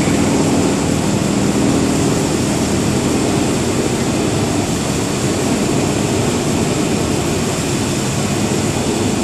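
Özsu seed dryer running while drying seed pumpkin seeds: a steady, loud, even rush of machine noise with a low hum underneath, as its rotating stirrers turn through the bed of seeds.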